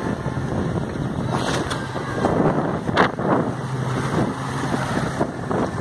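Yamaha 200 OX66 outboard running steadily with the boat under way at speed, over rushing water from the hull and wake and wind on the microphone. Several sharp splashes as the hull slaps waves, the loudest about halfway through.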